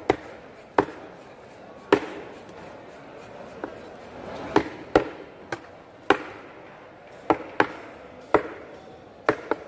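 A long fish knife chopping through raw fish and bone onto a wooden cutting board: about a dozen sharp, irregularly spaced chops, some in quick pairs.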